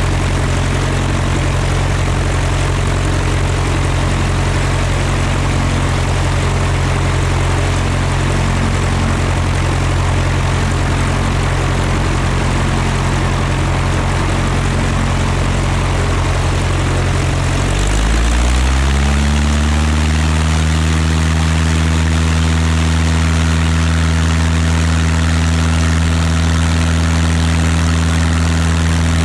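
Piper Pacer's piston engine and propeller idling steadily. About 18 seconds in, the throttle is opened: the engine note climbs within a second to a higher speed and holds there, a little louder.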